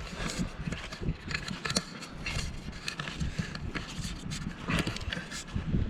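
Irregular rustling and scraping with light knocks, from someone walking with a heavy backpack on boggy ground while handling the camera.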